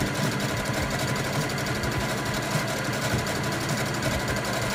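Brother CS6000i computerized sewing machine running steadily at a rapid stitch, top-stitching around the edge of layered cotton and fleece fabric.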